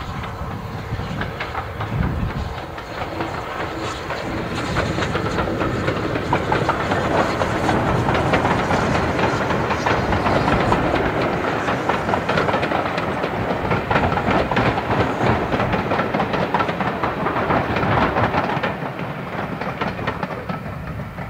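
Steam-hauled passenger train passing close by: the SR rebuilt West Country Pacific locomotive goes by first, then its coaches rumble past with a dense clatter of wheels on the rails. The sound fades as the last coach clears, near the end.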